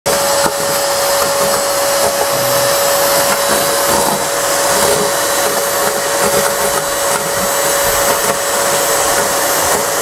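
Miyako 1800 W drum-type wet-and-dry vacuum cleaner running steadily with a constant motor whine, its wand brush sucking up scraps of shredded newspaper from a tile floor.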